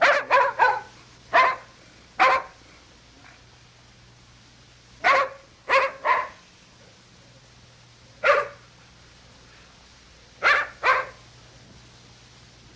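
A dog barking: about eleven short barks, some single and some in quick pairs or a run of three, with pauses of a second or more between groups, over a faint steady low hum.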